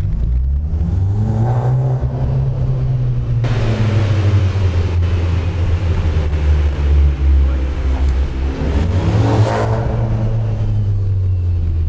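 Fiat 500 Abarth's turbocharged 1.4 four-cylinder with a Ragazzon exhaust and a decat pipe in place of the catalytic converter, accelerating hard in a tunnel. The engine note climbs, the exhaust turns much louder from about three and a half seconds in, then eases and climbs again near the end.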